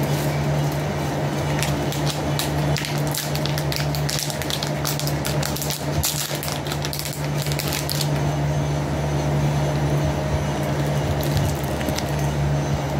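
Plastic packaging crinkling and rustling in the hands, dense for several seconds and thinning out after about eight seconds, over the steady hum of an electric fan.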